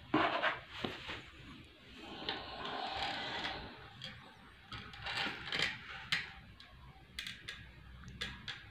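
Handling noises as a large speaker driver is moved and set down on a cloth: a string of light knocks and clicks, with a stretch of rustling about two to four seconds in.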